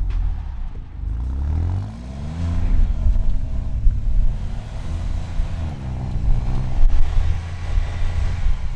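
Alfa Romeo Giulia Quadrifoglio's twin-turbo V6 revving up and down several times as the car strains to pull free of the snow it is stuck in.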